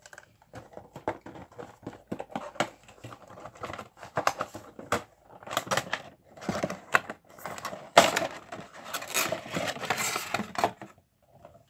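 A Funko Pop figure's cardboard box being opened by hand and the figure taken out: a busy run of clicks, scrapes and crinkling cardboard and plastic. It grows busiest about two-thirds of the way through, then dies away near the end.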